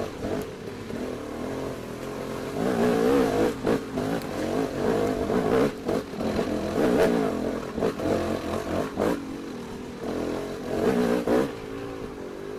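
Small engines running and revving, their pitch wavering up and down, louder from about two and a half seconds in, with several brief dips.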